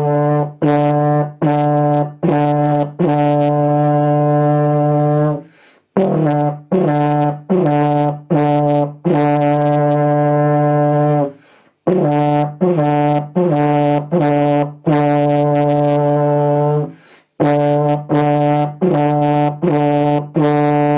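Tenor horn played by a beginner: one note at the same steady pitch, blown as four short quarter notes followed by a long held note. The pattern repeats four times with short breaths between.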